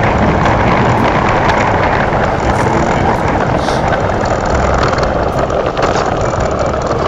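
Steady rushing noise of a vehicle on the move, wind and road noise over a low engine hum.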